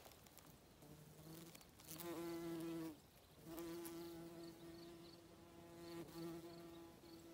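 Flying insect buzzing near a flowering shrub: a faint, steady hum that starts about a second in, breaks off briefly about three seconds in, then resumes.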